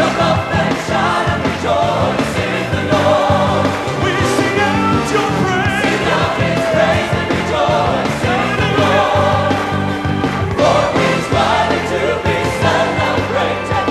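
Up-tempo gospel praise song: choir singing over band accompaniment with a steady beat.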